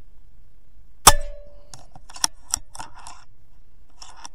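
A single shot from a .22 DAR Gen III PCP air rifle about a second in: a sharp crack with a short ringing tone after it. A run of sharp clicks follows, with a few more near the end.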